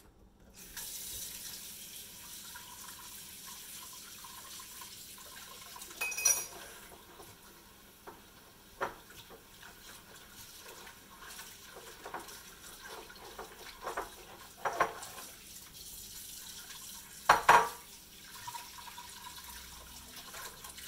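Kitchen tap turned on about half a second in and running into a sink, with a few clinks and knocks of dishes being handled in it.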